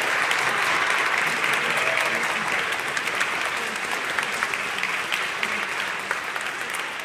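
Audience applauding, dense clapping that holds steady and then gradually dies down over the last few seconds.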